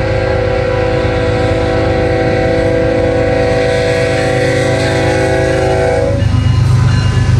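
Lead Union Pacific GE Evolution-series locomotive's horn sounding a long held chord for the grade crossing, cutting off about six seconds in. The locomotive's diesel rumble then grows louder as it arrives at the crossing.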